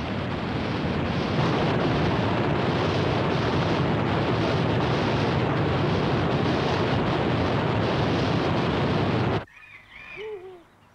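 Rushing water of a torrent in a rocky gorge and a waterfall, a loud, steady noise that cuts off suddenly about nine seconds in. A few faint animal calls follow.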